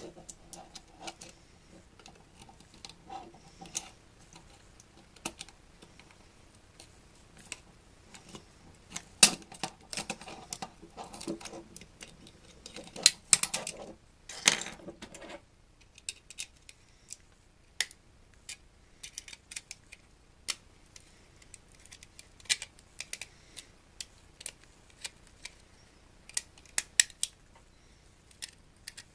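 Hand tools working apart the plastic and metal parts of a small electronic device: irregular sharp clicks and snaps, with a busier stretch of rattling and scraping about a third of the way in, then scattered single clicks.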